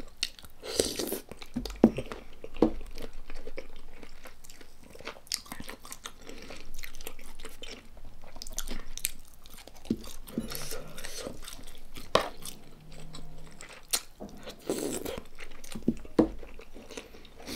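Close-miked chewing and crunching: a person eating with her mouth full, with soft wet chewing between sharp crisp crunches that come every second or two.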